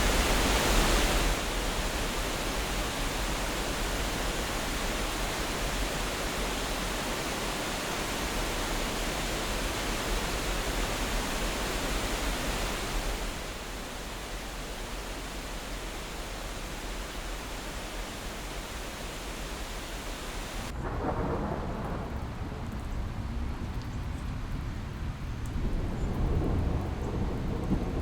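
Steady outdoor rushing-water noise with a deep rumble underneath. The texture changes abruptly about 13 s and again about 21 s in, where the high hiss drops away and a fuller, lower roar takes over.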